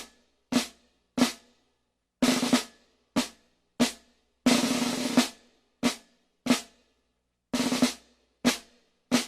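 Traditional drum beat: single sharp strokes alternating with short rolls about half a second to a second long, in an uneven pattern separated by silent gaps.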